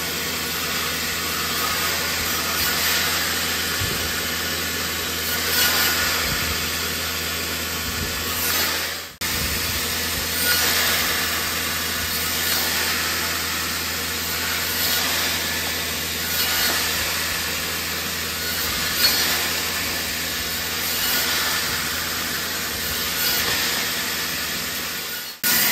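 Band saw running with a steady motor hum, cutting through small wooden blocks one after another, about one cut every two seconds, as the pieces are pushed through a spring-loaded template jig.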